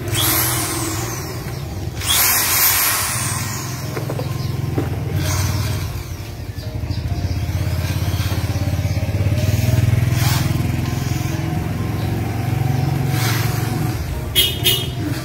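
Corded electric drill running in the air with no load, its motor speeding up and slowing down several times as the trigger is worked.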